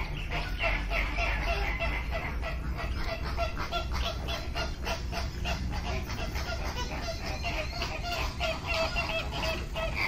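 Birds in an aviary calling: a steady run of short repeated calls, about three a second, with higher chatter from other birds over it.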